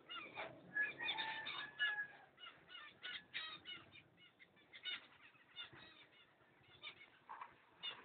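Cockatiels chirping and calling in quick short notes, with a brief held whistle about a second in. The calls are densest in the first few seconds and sparser afterwards.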